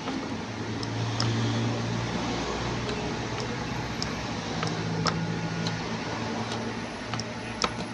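Light clicks of a Bosch dishwasher's control buttons being pressed, several times at irregular intervals, over a steady low hum. The start button gets no response.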